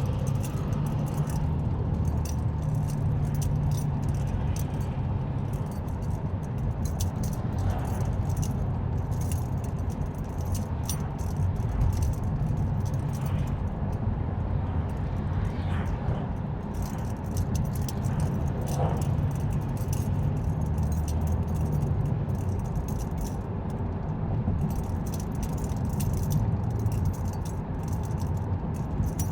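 Inside a car on the move: a steady low rumble of engine and road, with light rattling and jingling clicks scattered throughout.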